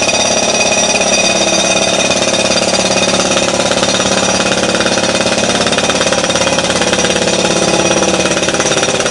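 Jackhammer breaking up the street pavement to dig down to the sewer main: loud, rapid, steady hammering.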